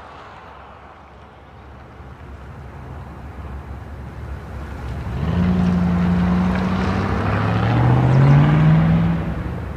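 2000 Chevrolet Silverado 1500 accelerating hard away from the listener through its aftermarket exhaust. The note is faint at first, grows loud about halfway through, drops in pitch once and climbs again, then eases off near the end.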